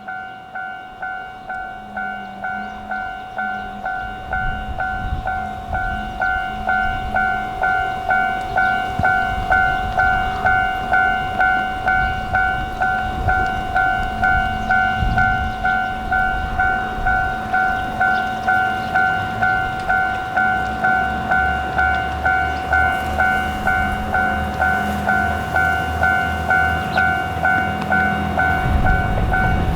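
Japanese level-crossing alarm ringing its repeating electronic ding, about one and a half strokes a second, while a Hojo Railway diesel railcar approaches and runs through the crossing, its engine and wheels rumbling beneath the bell.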